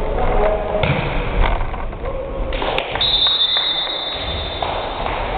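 Indoor volleyball rally: several sharp hits and thumps of the ball and players' feet on a hardwood gym floor, echoing in the hall. About three seconds in comes a high, steady squeal lasting a little over a second.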